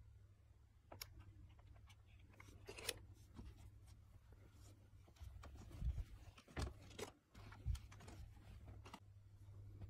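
Quiet handling noises: soft rustles and clicks of a plastic blister pack and a cotton T-shirt with its paper tag being handled, with three soft thumps in the second half, over a low steady hum.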